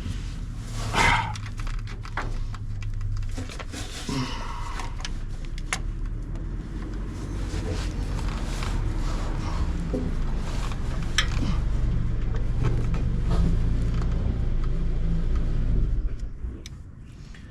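Metal hand tools clicking and clinking as a socket and ratchet are worked onto a starter bolt, over a steady low engine-like hum that grows louder and then dies away about a second before the end.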